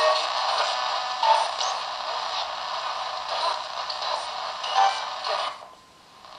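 Ghost box: a modified AM radio sweeping rapidly across the stations, played through a small clip-on speaker. It gives a thin, bass-less hiss of static chopped with split-second snatches of broadcast voices and music. The level dips briefly near the end.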